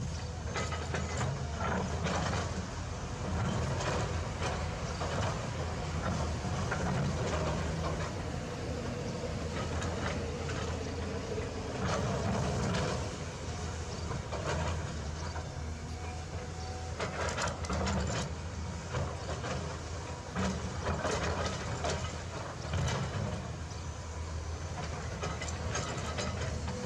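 Heavy earth-moving machine's engine running steadily, with irregular clanks and knocks throughout.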